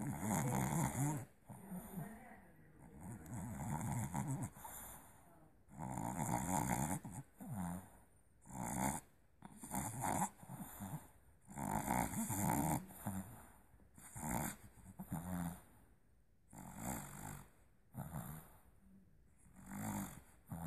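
Boston Terrier puppy snoring in its sleep: rough, noisy breaths come irregularly about every one to two seconds.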